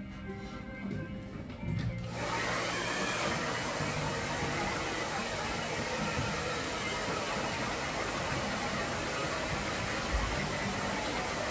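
A hand-held hair dryer switched on about two seconds in, then running with a steady, even rush of air; background music plays before it starts.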